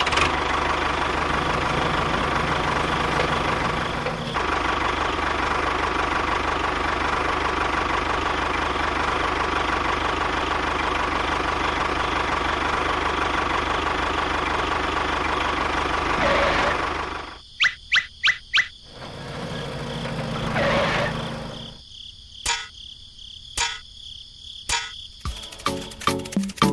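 Small motor of a DIY model construction machine running steadily, stopping after about 16 seconds, then a few sharp clicks, a brief second run and more clicks.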